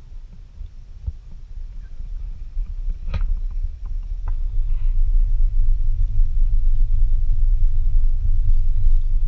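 Low rumble of a small motorboat moving along the bank, growing louder about three seconds in, with a sharp knock shortly after it starts to swell.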